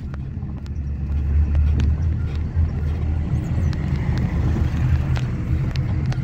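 Low, steady engine and road rumble of a moving vehicle heard from inside its cabin, with a few sharp rattling clicks.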